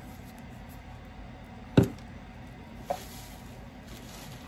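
A spray bottle set down on a hard surface with one sharp knock, followed by a lighter tap about a second later and faint rustling of shredded paper filler as a hand reaches into the box.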